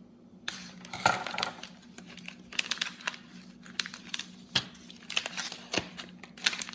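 Packaging of a new toner cartridge being handled and opened: irregular crinkling and crackling with sharp clicks, starting about half a second in.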